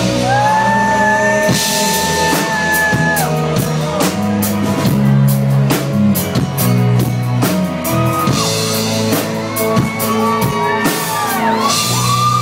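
A live band playing an amplified pop-rock song, with a drum kit keeping a steady beat under bass and long held melody notes that slide in pitch.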